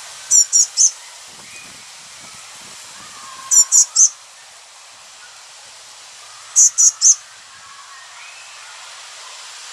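Blue tit giving thin, very high calls in quick sets of three, three times over, above a faint steady hiss.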